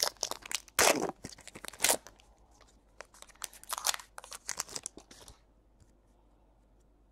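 Hands sliding and flipping baseball trading cards through a pack, a quick run of papery rustles and crinkles that stops a little after five seconds in.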